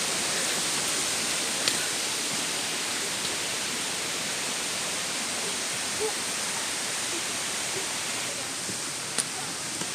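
Steady rush of flowing water, heard as an even noise, with a short sharp click about two seconds in and another near the end.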